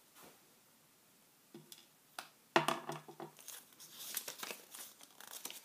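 Small clear plastic toy bag being crinkled and torn open by hand: a few small crackles, then a louder rustle a little past halfway and a quick run of crinkling after it.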